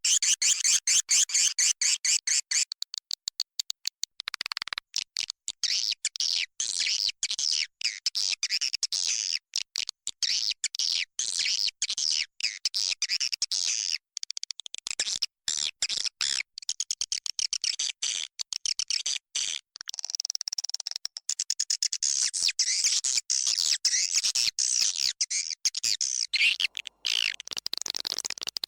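Swiftlets twittering: a dense, continuous mass of rapid high chirps and clicks with frequent abrupt breaks. It is a swiftlet-house recording used as a lure call to draw swiftlets in to roost and nest.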